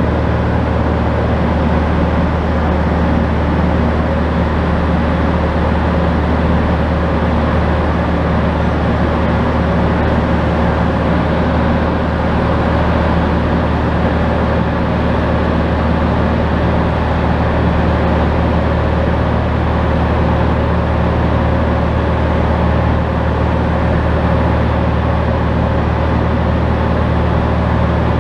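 Van's RV-10 light aircraft's piston engine and propeller running steadily in flight, a loud, even drone that does not change.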